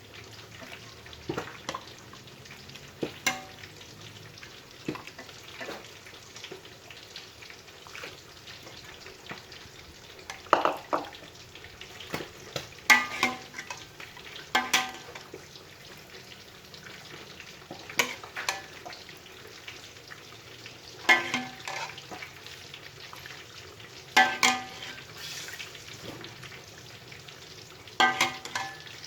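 Food sizzling in a hot pan, with a metal spatula or ladle stirring and knocking against the pan every few seconds, each knock ringing briefly.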